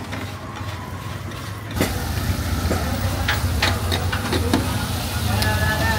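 Steel spatula clinking and scraping on a large flat tawa griddle as meat is turned, over a frying hiss and the steady low rumble of a running vehicle engine. About two seconds in the whole sound gets louder.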